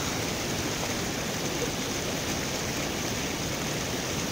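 River water rushing steadily over rocks in shallow rapids, an even, unbroken rush.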